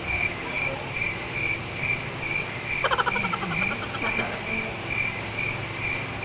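Steady rhythmic insect chirping, like a cricket's, about two to three chirps a second. About three seconds in there is a brief rattle of quick clicks.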